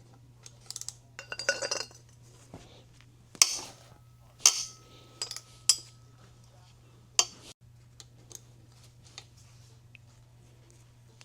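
Metal engine parts and hand tools clinking and knocking as they are handled and set down during an engine teardown: a short run of rattling clinks about a second in, then five or six sharp single clinks. A steady low hum runs underneath.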